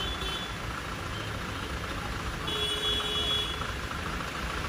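Jammed street traffic in the rain: a steady rumble of idling and crawling cars and trucks. A high-pitched tone sounds for about a second around the middle.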